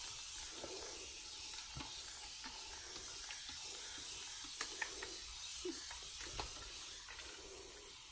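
Misting spray bottle spritzing water onto hair: a steady hiss with a few faint clicks.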